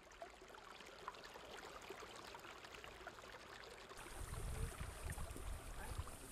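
Water of a narrow stream flowing in a walled channel: a steady rush with small crackles. About four seconds in, a low rumble joins it.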